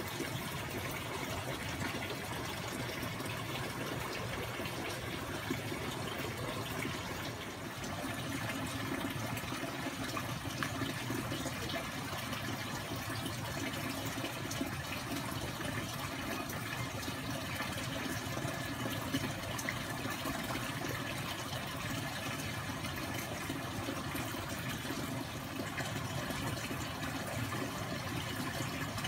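Running water flowing steadily, an even, unbroken noise.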